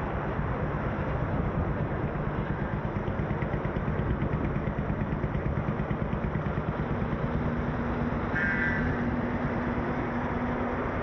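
Steady road and engine noise of a car driving through city traffic, with a short horn honk about eight seconds in.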